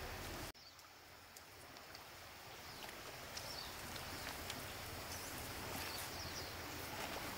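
Faint outdoor ambience: a steady hiss with a few faint high chirps and ticks. It drops suddenly about half a second in, then slowly builds back up.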